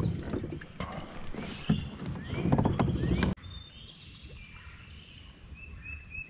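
Knocking and clattering of fishing gear being handled in a kayak, with a few short rising squeaks. It stops suddenly about halfway, leaving quiet river air with small birds chirping.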